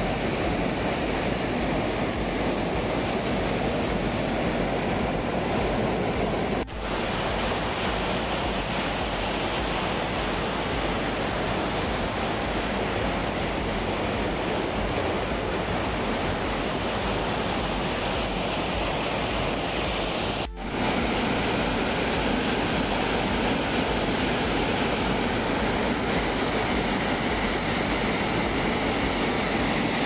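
Ghaghari waterfall: water falling from a great height into the gorge below, a loud, steady rushing noise. It drops out for an instant twice, about a quarter and two-thirds of the way through.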